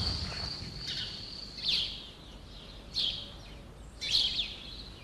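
Birds chirping: short high chirps about once every second or so, over a thin steady high tone that stops about a second in.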